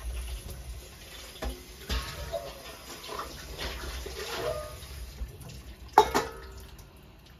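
Pot of water with cassava pieces bubbling on the stove, a steady watery hiss with faint crackles, and one sharp knock about six seconds in.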